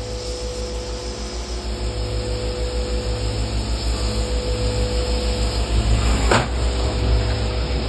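CNC lathe turning a billet aluminum part under flood coolant: a steady machine hum with a constant whine and coolant spray hiss, with a brief sweep in pitch about three-quarters of the way through.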